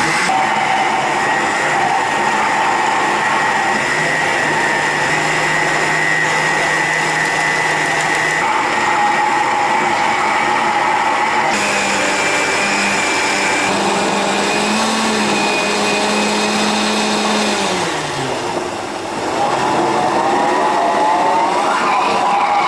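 Countertop blender running, blending a banana and water smoothie. Its motor pitch shifts in steps as the load changes, dips briefly near the end, then rises again.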